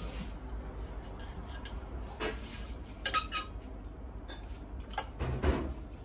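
Knife and fork clinking against a plate during eating: a few separate clinks, one ringing briefly about three seconds in, and a duller knock near the end, over a steady low hum.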